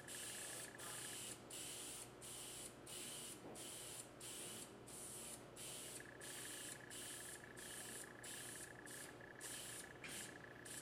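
Preval aerosol sprayer hissing as it sprays DuraCoat firearm finish onto a rifle buttstock. It goes in repeated short bursts with brief breaks about every two-thirds of a second, as a light second coat of paint is laid on.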